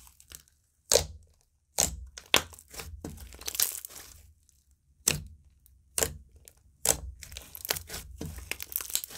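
Hands squishing and mixing a soft slime, giving sharp pops about once a second between stretches of fine crackling.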